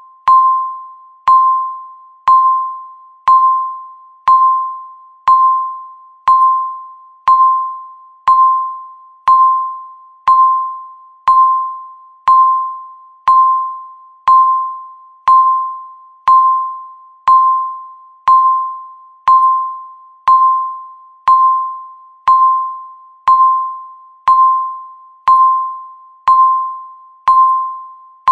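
Countdown timer beeping once a second, one beep for each second left. Each beep is a single clear tone that starts sharply and fades away before the next.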